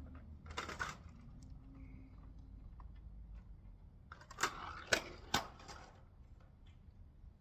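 Hand tools and small metal parts handled during engine work: a brief rattle about half a second in, then three sharp metallic clinks about half a second apart around the middle, over a low steady hum.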